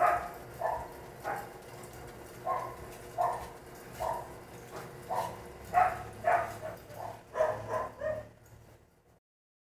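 A dog barking over and over in short calls, which stop about eight seconds in before the sound fades out.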